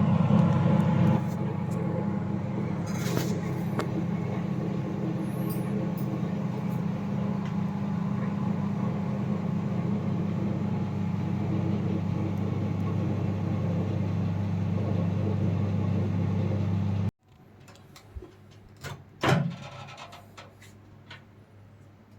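IFB 30FRC2 convection microwave oven running, a steady low hum, heating at 200 °C in convection mode. The hum cuts off abruptly about 17 seconds in. A few light knocks follow, the loudest about two seconds later.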